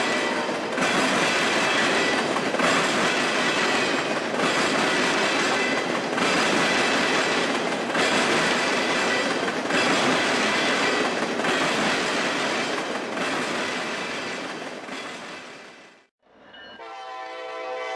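Freight train of loaded tank cars rolling past, its wheels clattering over the rail joints in a pulse roughly every second and three-quarters as each pair of car trucks goes by. The sound fades and drops out, and near the end a diesel locomotive's multi-note air horn sounds.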